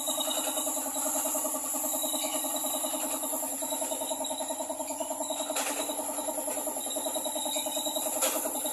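Workshop air compressor running steadily with a fast, even pulsing hum and a constant high hiss. Two short bursts of hiss come about halfway and near the end.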